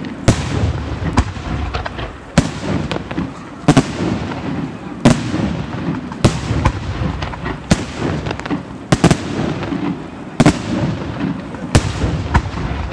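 Aerial firework shells bursting overhead in quick succession: sharp bangs about once a second, with a continuous low rumble of echoing detonations between them.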